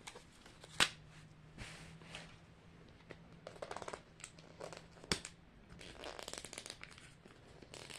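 Hard plastic Mini Brands capsule ball being handled and pried at while someone tries to open it. Scattered clicks and knocks, with a sharp click about a second in and another around five seconds, and patches of fine rattly ticking.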